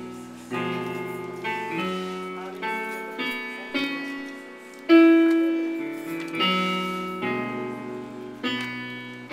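Slow instrumental music of struck keyboard chords, each ringing and fading before the next, the loudest about five seconds in.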